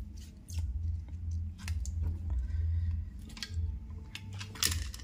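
Scattered small plastic clicks and rustles of wire connectors being handled and pulled off an air-conditioner circuit board, over a low uneven rumble; the loudest clicks come near the end.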